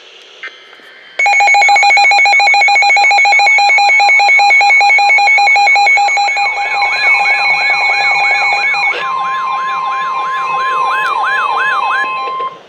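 Weather alert radios sounding their warning alarms: a loud pulsed beeping starts about a second in, and a rising-and-falling warble joins about halfway through. The steady single-pitch NOAA Weather Radio warning alarm tone sounds from about nine seconds in, and all of it stops just before the warning message is read.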